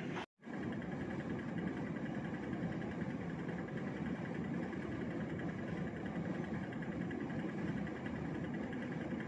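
Hitachi RA-36NV window air conditioner running with a steady, dense mechanical drone and vibration: the abnormal noise (異音) that the unit is making. It breaks off for a moment just after the start, then continues unchanged.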